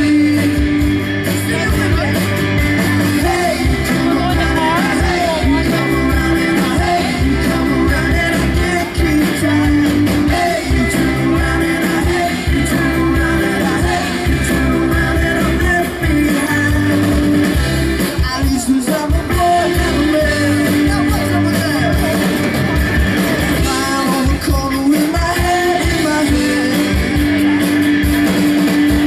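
Live rock band playing: a man singing over strummed acoustic guitar, bass guitar and a drum kit.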